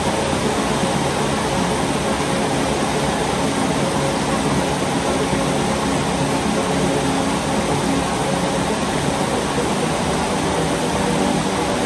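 Rain falling steadily, an even hiss, with a faint low hum underneath.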